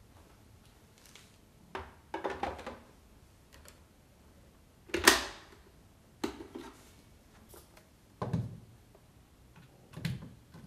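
Hard plastic clicks, knocks and short scrapes as the body of a Kärcher K 55 cordless electric broom and its charger unit are handled, about six separate knocks with the loudest about five seconds in.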